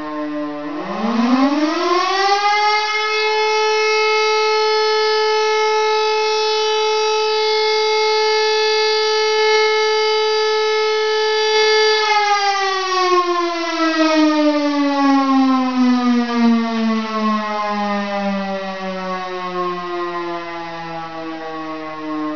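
Type L1 motor-driven civil-defence siren from the WWII era, sounding like an E57, giving a short test wail. Its pitch dips at first, climbs within about two seconds to a steady tone, holds for roughly ten seconds, then slowly winds down in falling pitch as the rotor runs down.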